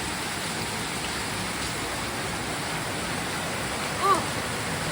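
Torrential rain pouring down, a steady even hiss. About four seconds in, a brief rising-and-falling cry sounds over it.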